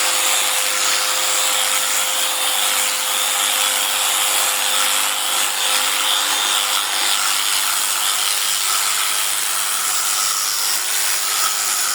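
A small motor running steadily, a whirring noise with a constant hum underneath.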